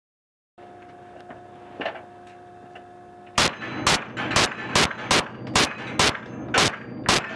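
Tanfoglio Open Class 9x19 mm pistol fired rapidly on an indoor range: about nine shots, roughly two a second, starting about three seconds in after a faint steady hum.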